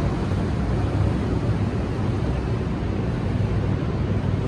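Steady low rumble of outdoor noise: wind on the microphone mixed with city traffic.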